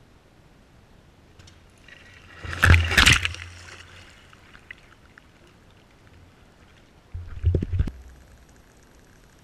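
A dog splashes into a swimming pool about two and a half seconds in, with loud splashing and water sloshing that fades over the next second or so. A second, shorter burst of noise follows about seven seconds in.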